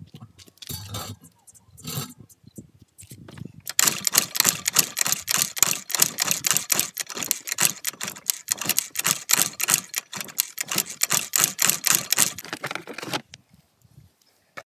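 A rapid run of sharp clicks or taps, several a second, starting about four seconds in and stopping suddenly near the end.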